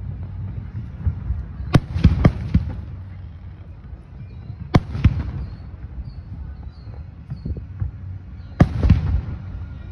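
Aerial firework shells bursting at a distance. There are sharp bangs, a quick cluster of three about two seconds in, another near five seconds and one near nine seconds, each followed by a rolling echo over a low rumble.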